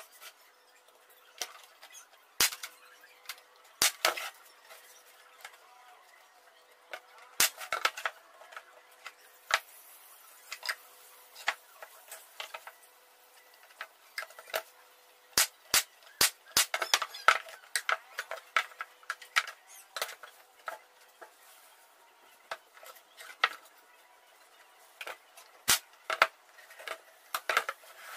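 Pieces of 9 mm plywood knocking and clacking against each other and the table as they are handled and slotted together by hand. The sharp taps come irregularly and are busiest in the second half.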